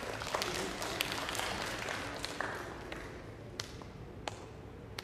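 Scattered hand clapping that thins out and fades over the first three seconds, leaving a few isolated claps near the end.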